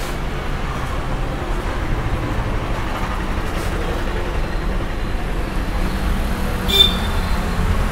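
Steady rumble of passing road traffic, with a brief high-pitched chirp near the end.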